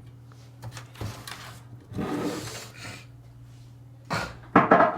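Handling noises of wiring work: a few light clicks and a rubbing scrape about two seconds in as speaker wires are connected, with a couple of sharper knocks near the end, over a steady low hum.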